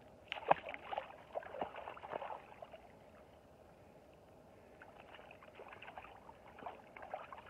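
Water splashing as a chub is tossed back into the river, followed by a run of sloshes and splashes as a wet keepnet is worked and lifted in the water. There is a quieter stretch in the middle, then smaller splashes and drips again.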